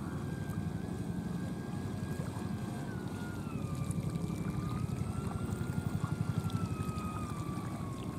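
Brushless electric motor of a 1 m RC model cruiser whining steadily as the boat runs. Its pitch dips about three seconds in and sinks slightly near the end, over a low rushing of water and wind.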